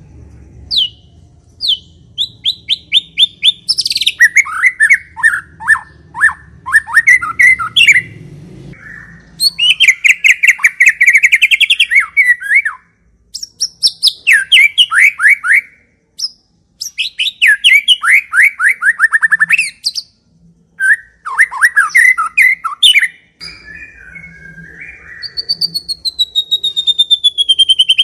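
White-rumped shama singing loud, fast phrases of rapidly repeated notes, broken by short pauses, with a long falling whistle near the end.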